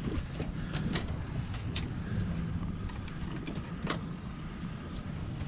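Boat outboard motor running low and steady in neutral, with a few short sharp clicks over it.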